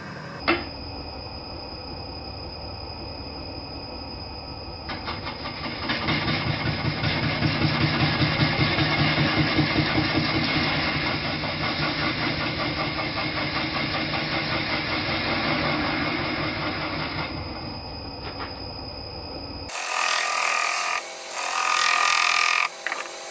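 Record Power wood lathe spinning a horse chestnut blank while a gouge cuts it: the cutting noise builds about five seconds in and eases off near the end. The last few seconds are the same turning played back at four times speed, high and chattering.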